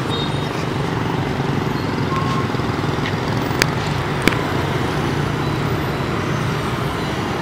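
Steady city street traffic: cars and motorbikes running and passing on a busy road, with two short sharp clicks a little past the middle.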